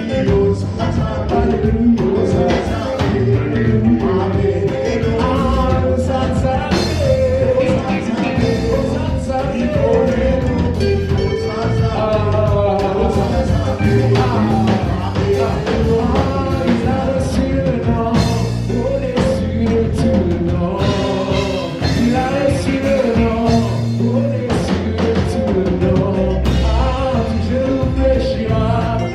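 Praise and worship band playing an upbeat song: drum kit and bass under sung vocals.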